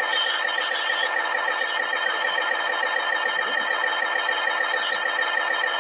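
A steady buzzing drone with many overtones, holding at an even level and cutting off abruptly at the very end.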